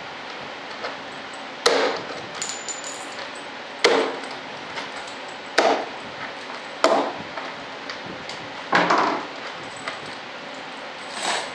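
A hand tool knocking on a composite wing mold as the mold halves are worked apart during demolding: six sharp knocks, each with a brief ring, spaced about one and a half to two and a half seconds apart.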